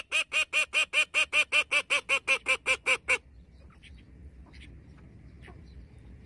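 Duck quacking in a fast, even run of about six quacks a second for some three seconds, then stopping suddenly; only faint ticks follow.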